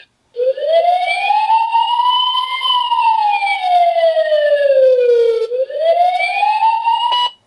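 Fire-engine siren sound effect played through the small speaker of an S+S Toys talking book (model DO43004R): one slow wail that rises, falls over a few seconds, rises again near the end and then cuts off abruptly.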